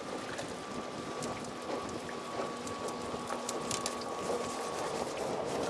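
Multiplier fishing reel being cranked steadily against a heavy load on the line, its gears whirring.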